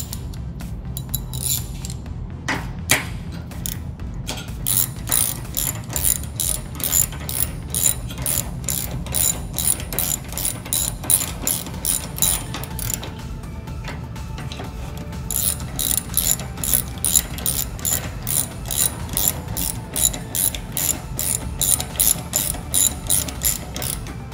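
A hand ratchet clicking in two long runs of even clicks, about three a second, with a short pause between, as 10 mm bolts are run into a plastic fender bracket.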